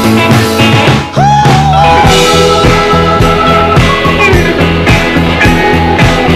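Loud rock music with a steady beat. About a second in it drops out briefly, then a note slides up and holds.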